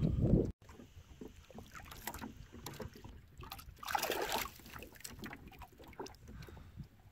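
A brief low rumble cuts off suddenly about half a second in. Then a splash about four seconds in, as a hand plunges a small corvina back into the river water to release it, with faint scattered knocks.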